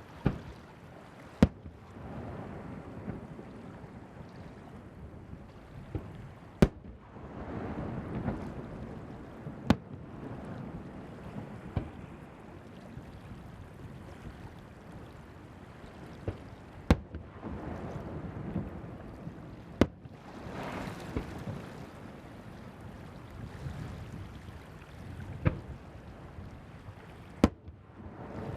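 Firework shells bursting over the sea, about nine sharp bangs a few seconds apart. Between them there is a low rolling rumble that swells and fades, with surf and wind on the microphone.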